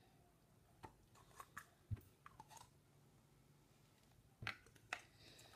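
Quiet handling of Play-Doh: faint scattered clicks and soft squishes as hands pull the modelling dough apart and work the pieces.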